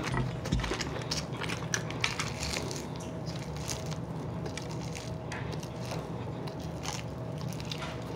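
Chewing and crunching of crispy fried chicken wings, with many small crackles and clicks scattered throughout as a wing is picked apart by hand.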